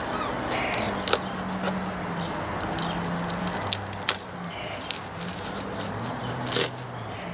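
Old glued seat foam tearing and crackling as it is peeled off a motorcycle seat base. There are rustles and a few sharp snaps, the loudest about a second, four seconds and six and a half seconds in. A low steady hum underneath changes pitch a few times.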